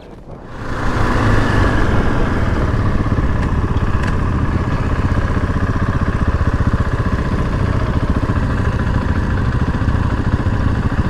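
Dirt bike engine running at a steady pace while riding over a rough dirt track; it comes in suddenly about half a second in and holds an even, rapid beat.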